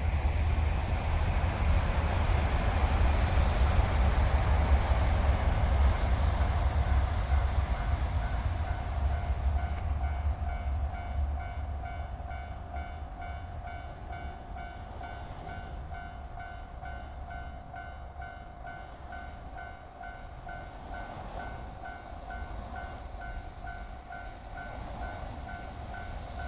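A train running past a Japanese railway level crossing, with a loud low rumble for about the first ten seconds that then fades. Through it the crossing's warning bell rings in an even, repeating pulse, heard plainly once the train noise drops.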